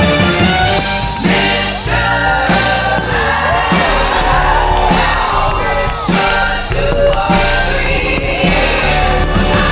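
Music: a song with a sung vocal line over steady instrumental backing with a sustained bass.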